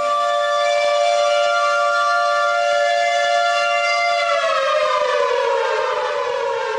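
Air-raid siren sounding a steady high wail, then winding down with its pitch falling from about four seconds in.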